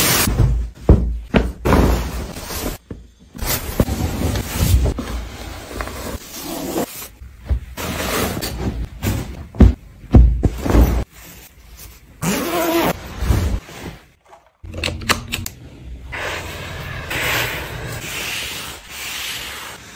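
Bedding being handled: fabric and pillowcases rustling and swishing in irregular bursts, with soft thumps and pats as pillows are set down and smoothed on the mattress.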